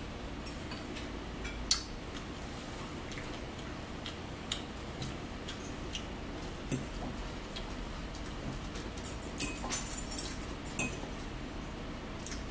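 Metal fork clicking and scraping against a salad bowl while eating: scattered single taps every second or two, the loudest about two seconds in, then a quick run of several clicks near the end.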